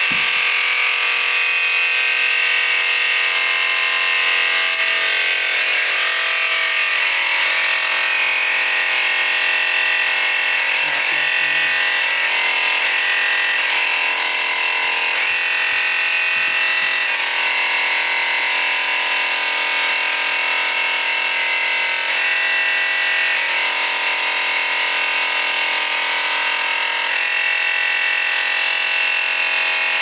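Background music of sustained synthesizer-like tones, the chord changing every second or two.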